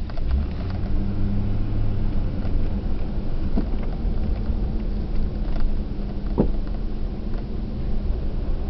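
Car driving steadily at road speed: a continuous low rumble of engine and tyre noise with a steady hum. There is a brief creak about six seconds in.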